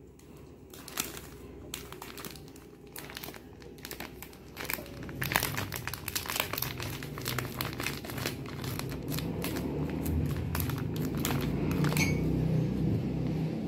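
Thin plastic bag of flour crinkling as it is squeezed and shaken to pour the flour into a bowl. The crinkling grows busier and louder from about five seconds in.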